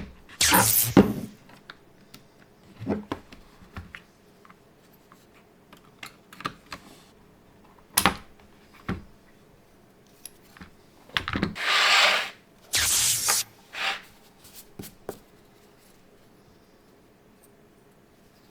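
Scattered clicks and clacks of a mechanical keyboard and its keycaps being handled, with a few longer rubbing noises near the start and about twelve and thirteen seconds in.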